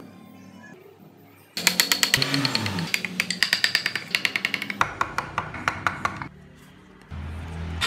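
A narrow chisel being tapped into the pine body of a wooden toy car to cut the door seams, a quick run of sharp taps at about six a second starting about a second and a half in, then slower, more spaced taps.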